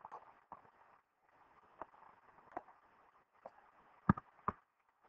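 Faint scattered clicks and taps of hand-writing onto a computer screen, with two louder knocks about four seconds in, over a low steady hiss.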